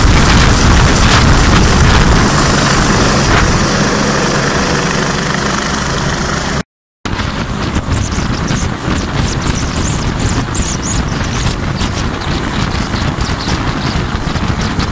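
A Bell 206L-4 LongRanger IV helicopter hovering close by with a load on a long line: rotor chop and engine noise, with a high steady whine in the second half. About seven seconds in the sound drops out for a moment, then picks up again.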